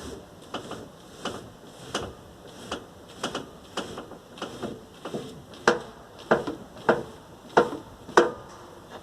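Repeated knocking from under the hood of a VAZ 21099 as the steering is turned, about one and a half knocks a second and louder in the second half. The owner suspects a worn steering rack.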